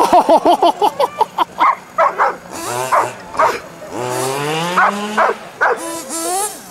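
A dog barking excitedly: a quick run of short yaps, then more spaced barks and a longer whining call.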